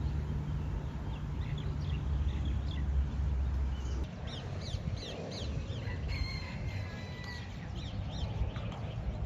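Birds chirping: a run of quick, high, downward-sliding chirps with a couple of longer whistled notes, over a low rumble that drops away about four seconds in.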